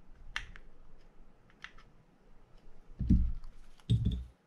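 Light metallic clicks of a small screwdriver on the screws of a Penn Spinfisher 750SSM spinning reel as they are snugged down, then two dull knocks about three and four seconds in as the reel body is handled on the bench.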